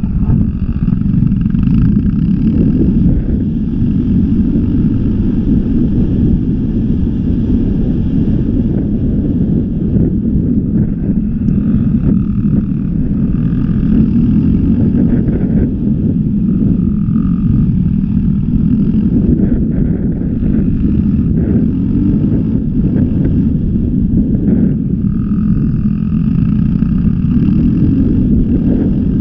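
Off-road motorcycle engine running under throttle on the move, with heavy wind buffeting on the microphone; the sound stays loud and steady.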